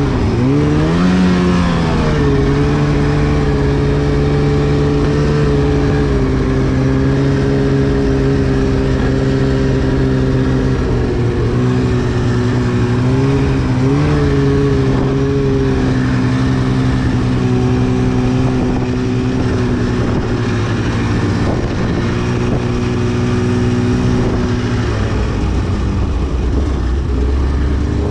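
2010 Arctic Cat CFR 1000 snowmobile's 1000cc two-stroke twin engine revving up about a second in, then running at a steady pitch under way, with brief throttle changes around the middle and a dip near the end.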